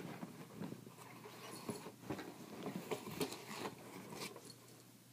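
Hands handling small objects close to the microphone: a quick, uneven run of light scratches, rustles and clicks that dies away near the end.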